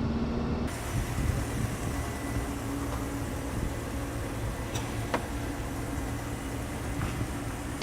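A car running on the inspection line: a steady low rumble with a faint hum, and a couple of light clicks about five seconds in.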